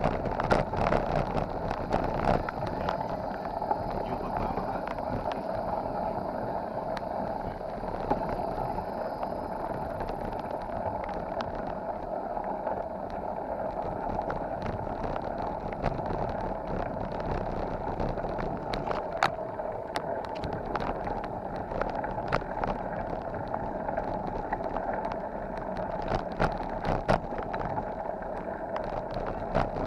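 Bicycle rolling along a rough dirt and gravel road: a steady rush of tyres and air, broken by frequent sharp rattles and knocks as the bike jolts over the bumps.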